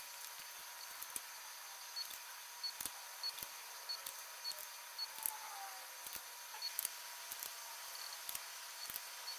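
Faint, irregular metal clicks and taps of a ratchet and a torque wrench working bolts on the aluminum cylinder head of an LS V8, over a faint steady tone.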